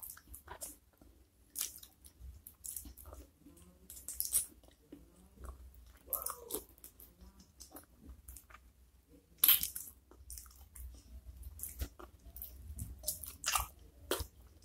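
Close-miked eating of soft-cooked chicken feet and flat noodles in a spicy sauce: wet chewing and biting with irregular sharp crunches, the loudest a little past halfway.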